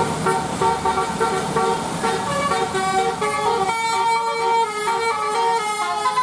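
A bus's Basuri telolet horn, a nine-note set of eighteen air-horn trumpets, playing a quick melody of stepping notes. The bus engine rumbles underneath for the first few seconds.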